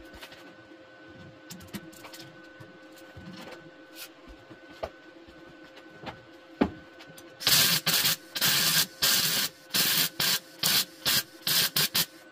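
MIG welder tacking and stitch-welding car-body sheet steel in about ten short, loud bursts over the last four to five seconds. Before that come faint scattered taps and one sharp knock.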